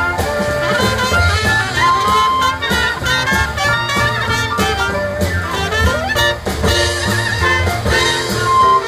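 Live jazz band playing an instrumental passage: brass horns leading over walking double bass and drums.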